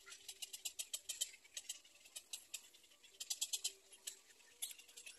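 Black-crowned night heron nestlings giving faint, rapid, high-pitched clicking calls, about ten clicks a second, in a run over the first second and another short run about three seconds in.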